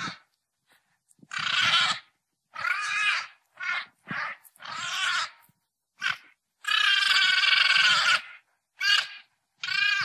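Alpacas calling: a run of about nine short, high-pitched calls with silences between them. The longest call, about a second and a half, comes in the second half.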